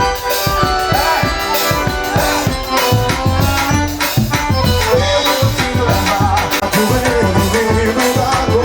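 Forró band playing an instrumental passage: accordion melody over percussion with a shaker, with the bass coming in about three seconds in.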